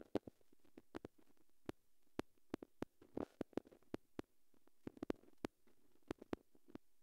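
A stylus tapping and scraping on a tablet screen while annotations are drawn: a quiet, irregular run of sharp clicks, about four a second.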